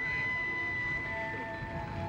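Background music of sustained held notes that change in steps, over a low noisy rumble.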